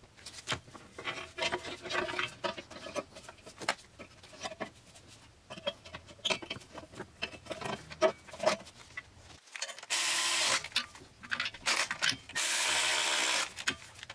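Metal parts being handled and set in place, with scattered light clicks and knocks. Then a cordless ratchet runs twice, for about a second each time, driving the exhaust manifold's fasteners down.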